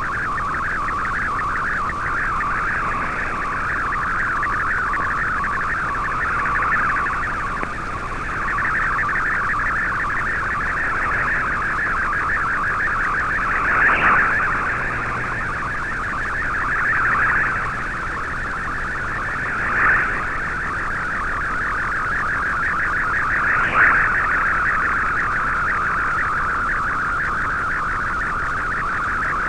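Slow-scan television (SSTV) picture signal coming through a shortwave receiver in AM mode: a loud, fast, even warbling chatter of tones held in a narrow band, as an image is sent line by line. It swells briefly louder three times.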